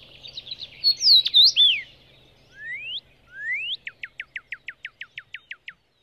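Songbird song: a run of chirps and loud slurred whistles, then two rising whistles, then a fast series of about a dozen sharply falling notes, roughly seven a second, that stops abruptly.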